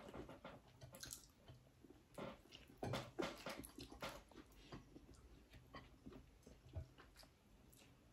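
Faint chewing and mouth sounds of people eating by hand, with soft scattered clicks and smacks every half second or so.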